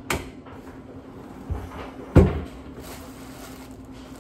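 Hard plastic clunks and knocks as a Ninja Professional blender's pitcher and stacked blade assembly are handled and taken apart, the loudest knock about two seconds in.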